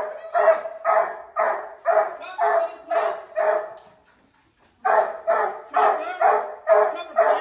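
A hound-type dog barking over and over, about two barks a second, breaking off for under a second midway before carrying on.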